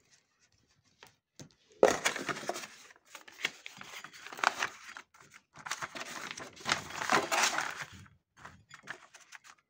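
Paper rustling and crinkling as a folded instruction sheet is opened and handled. It comes on and off from about two seconds in until about eight seconds in.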